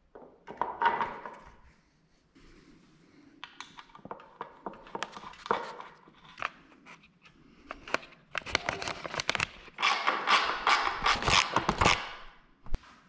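Irregular clicks, knocks and rustling of parts being handled in a small workshop room, sparse at first and coming thick and fast in the last few seconds.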